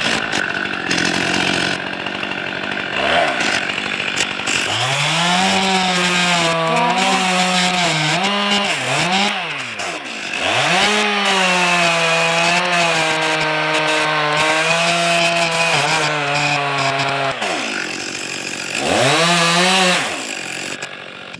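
Stihl two-stroke chainsaw cutting into a standing tree trunk. The engine revs up to full throttle about four seconds in, and its pitch sags and wavers as the chain bites into the wood. It revs up again, settles lower under load, drops back as the throttle is released, then gives one more short burst near the end.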